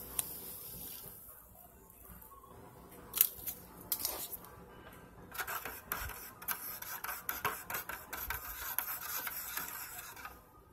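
Metal spoon stirring coffee in a thin plastic cup. A couple of sharp taps come about three and four seconds in, then about five seconds of quick ticking and scraping against the cup's sides.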